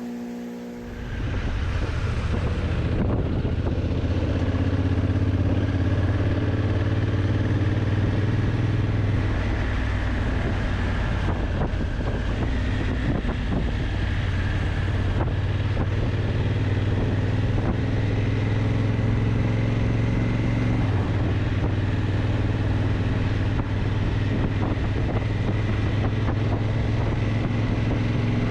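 Honda CRF1000L Africa Twin's parallel-twin engine running at a steady road speed while riding, with wind rushing over the microphone. The riding noise comes in about a second in.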